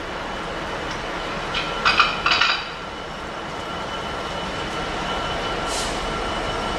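Class 66 diesel-electric freight locomotive approaching with its train, its two-stroke diesel engine and wheels making a steady rumble that slowly grows louder. A couple of short, bright ringing sounds come about two seconds in.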